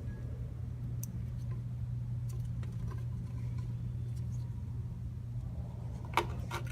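Steady low hum of the workshop's background, with faint ticks. Near the end come a few sharp clicks of bolts being handled and set in place on the engine cover.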